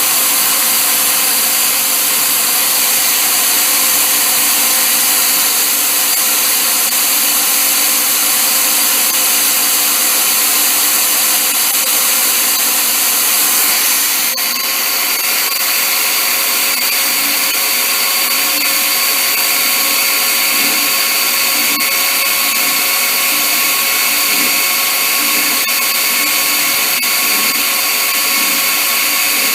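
Electric drill running steadily, drilling out a broken stud; a steady whine that shifts slightly about halfway through.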